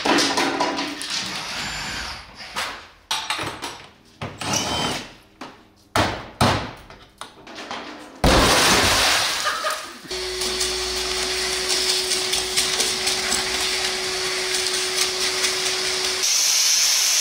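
Car interior trim being pried and pulled off, with knocks and clicks of panels and clips coming away. From about ten seconds in, an industrial vacuum runs steadily with a constant hum, sucking up shattered window glass inside the car body, and about a second before the end a steady hiss takes over.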